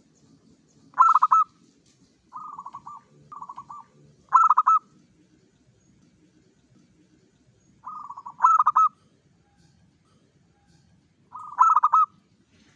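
Zebra dove (perkutut) cooing: short, rapidly pulsed coos, softer notes leading into louder ones, in about four phrases a few seconds apart.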